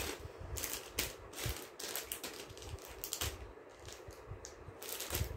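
Gold-finish choker necklaces being handled, giving irregular light clicks and rustles, several close together at times.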